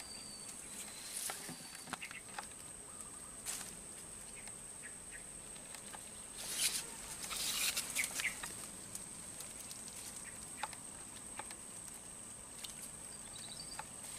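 Quiet swamp-edge ambience with a thin steady high tone, broken by scattered soft clicks and rustles of grass and fishing tackle being handled. A longer patch of rustling comes about six to eight seconds in, as the line with its float goes out onto the water.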